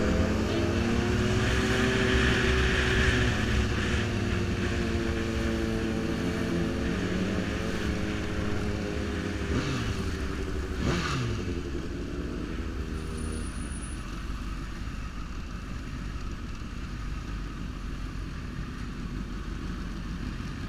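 Sport motorcycle engine running in city traffic, its pitch easing down as the bike slows. For the last several seconds it settles to a low, steady idle.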